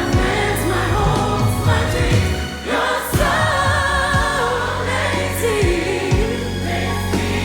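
Gospel choir singing in full voice over band accompaniment, with sustained bass notes and sharp percussive hits every second or two.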